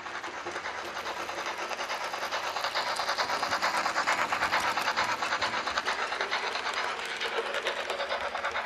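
Märklin/Trix HO-scale Bavarian S3/6 model steam locomotive and its coaches running along model track: a fast, dense clicking and rolling of metal wheels on rails. It grows louder to a peak about four seconds in as the train passes, then eases off.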